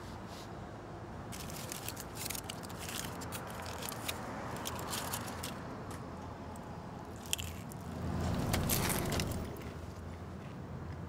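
Aluminium foil crinkling and crackling in quick irregular bursts as a foil-wrapped burrito is unwrapped and handled, louder for a moment about eight seconds in, over a steady low background hum.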